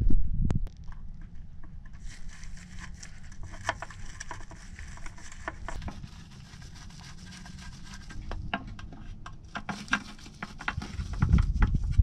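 Mercedes OM617 oil pan being fitted to the engine block: a loud knock right at the start, then irregular light metallic clicks and scrapes of a hand tool working the pan bolts. The clicking gets busier again near the end.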